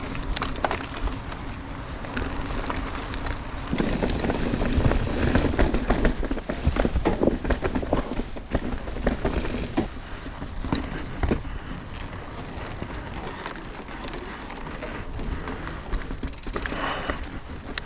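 Mountain bike rolling over a rough, rocky trail: a steady rush of tyre and wind noise with frequent clatter and knocks, busier and louder from about four seconds in.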